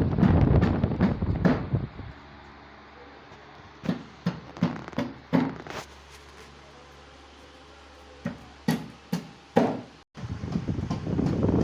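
Sharp knocks: a quick run of about six near the middle and four more near the end. A loud rushing noise takes over near the end.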